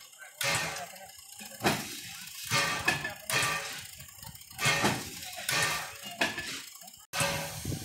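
Heisler #6 geared steam locomotive standing with steam up, giving off loud puffs of steam roughly once a second. The sound breaks off suddenly near the end.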